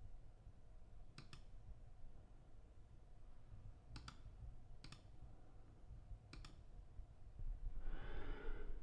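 Button clicks of a Logitech M720 wireless computer mouse: a quick double click about a second in, then three single clicks spaced about a second apart.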